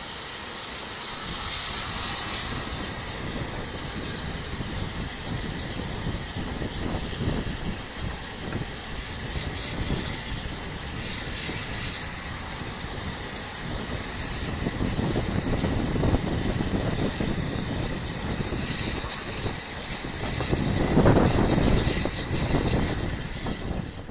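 An 1860s open-cab steam locomotive pulling a train away from the station: hissing steam, loudest about two seconds in, over the running noise of the engine and carriages on the rails, which grows louder near the end.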